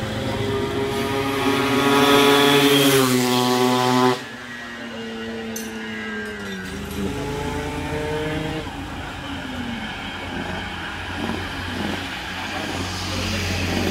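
Yamaha RX-King 135cc two-stroke motorcycle engine revving, its note climbing for about four seconds. The sound then drops off sharply, and a quieter engine note sinks and rises again.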